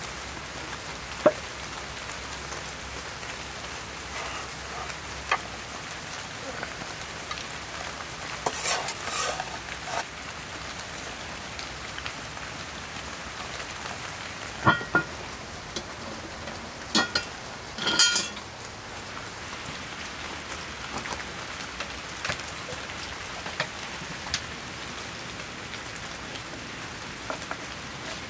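Steady rain falling, with a few sharp knocks and short rustling, scraping bursts from handling raw veal chops on a wooden board.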